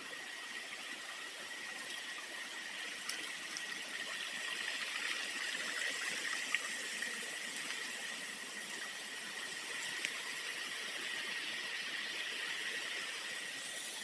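Steady hiss of tropical forest ambience with a thin, steady high tone running through it, and a few faint snaps of footsteps on leaves and twigs.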